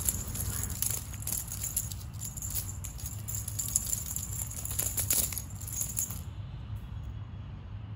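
A small cat toy rattling and crackling in quick irregular bursts as a kitten paws, bites and bats it across a tiled floor, stopping about six seconds in. A steady low hum runs underneath.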